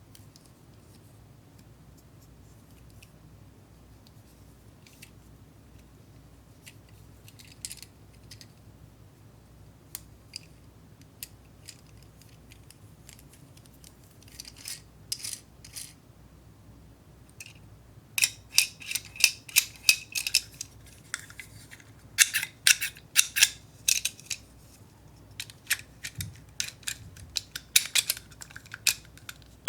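Hand handling of a DIY candy kit's small hard plastic parts and packaging: scattered light clicks at first, then from about two-thirds of the way in, clusters of quick, crisp clicking and rattling.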